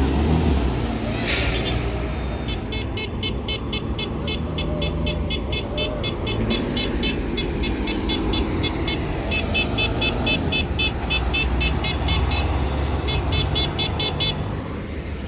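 City buses with Euro 5 diesel engines running as they drive past, a steady low rumble, with a short hiss just over a second in. Over the rumble, from a couple of seconds in until near the end, a fast, even high-pitched ticking beat of about three to four strokes a second.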